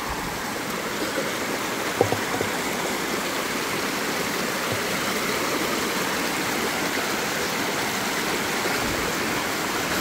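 Small waterfall and stream splashing steadily over rocks, an even rushing of water, with a brief knock about two seconds in.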